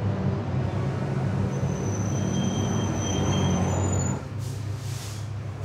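City street traffic: a heavy road vehicle passes close with a steady engine rumble and a thin, high brake squeal in the middle. The noise cuts off suddenly about four seconds in, leaving a quieter street hum.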